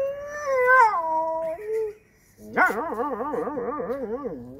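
A man imitating a big dog with his voice: one long howl that rises, holds and falls away in steps, then after a short pause a wavering howl that wobbles about four times a second.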